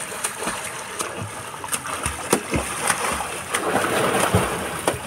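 Splashing of a person swimming overarm through open water, the arms slapping the surface in repeated irregular strokes.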